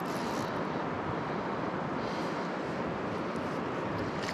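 River water rushing steadily over stones, an even hiss without a break.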